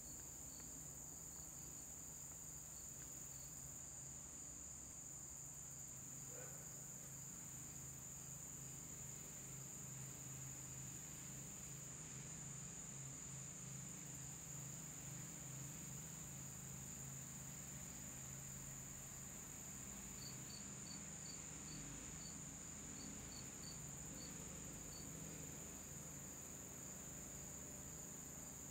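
Steady, high-pitched insect trill over a faint low hum. About two-thirds of the way through comes a run of about a dozen short chirps.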